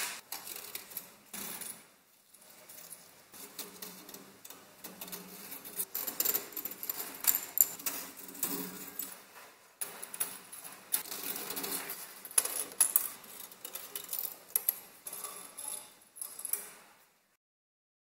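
Irregular clicking and clinking of small metal parts as the heater's element assembly is taken apart: a screwdriver working at screws among the coiled heating wires, and the metal frame, coils and loose screws handled on a wooden bench.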